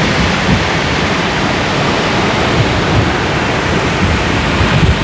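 Strong wind blowing across the microphone, a loud, steady rushing noise with uneven low buffeting.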